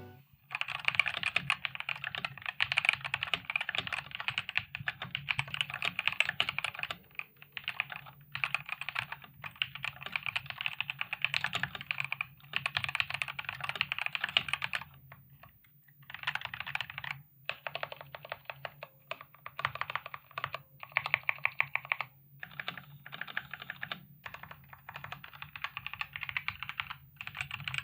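Typing on an Ajazz AK871 wireless tenkeyless mechanical keyboard with stock red linear switches and ABS keycaps: fast, continuous clacking in runs, with brief pauses between bursts.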